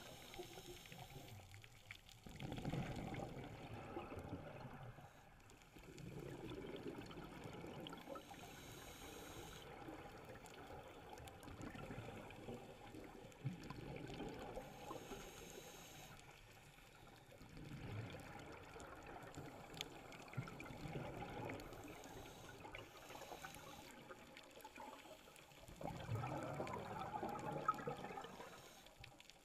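Scuba regulator breathing heard underwater: exhaled air bubbling out in swells every few seconds, with quieter gaps between breaths.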